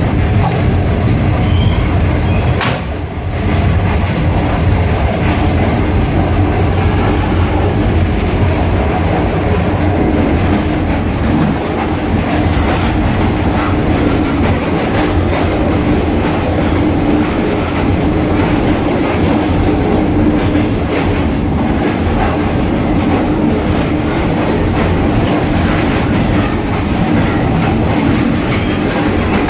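Moving passenger train heard from on board: a steady loud rumble of the carriage with wheels clattering over the rail joints. The sound dips briefly about three seconds in.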